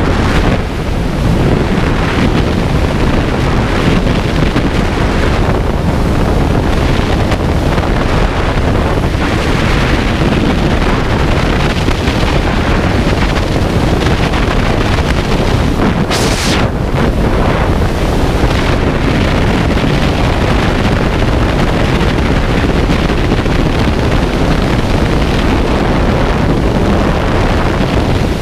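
Freefall wind rushing loudly and steadily over a skydiver's camera microphone, with one brief sharper burst of hiss about halfway through.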